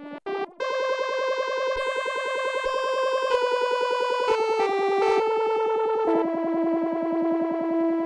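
Korg PS-3300 FS analog polyphonic synthesizer playing a bright, rapidly pulsing tone. After a brief break near the start it holds one note, then moves through a few changing notes about once a second and settles on a lower held note.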